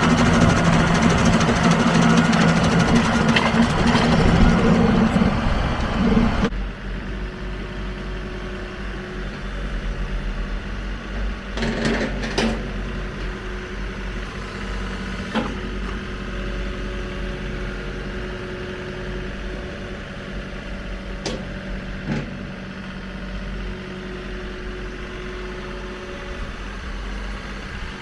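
John Deere 2038R compact tractor's three-cylinder diesel running a three-point PTO stump grinder under load, loud and steady. About six seconds in the grinding noise cuts off suddenly, leaving the engine running more quietly, with a few sharp clicks.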